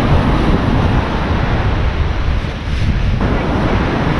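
Wind buffeting the microphone over the steady wash of ocean surf breaking on the shore.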